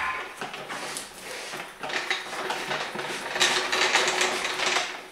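Wooden engine dolly rolled on its casters across a concrete garage floor, a steady rattling clatter that is loudest near the end.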